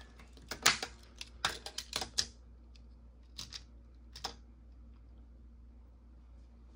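Light clicks and taps of die-cast toy cars being handled and set into the plastic track's starting lanes. There is a quick run of clicks in the first two seconds and a few more around the middle, over a steady low hum.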